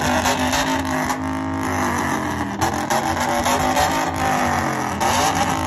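Exhaust of a Chevrolet TrailBlazer SS's 6.0 L V8 running loud at the tailpipe, its pitch rising briefly near the end.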